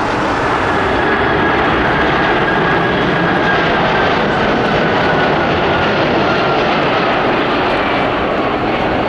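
Boeing 747-400F freighter on final approach with its gear down. Its four jet engines give a loud, steady roar with a fan whine that slowly falls in pitch as it passes. In the first second, jet noise from a Boeing 747-8 climbing out.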